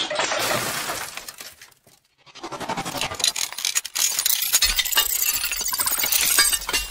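Glass shattering and clinking in a dense run of crashes and tinkles, with a brief break about two seconds in, over some music.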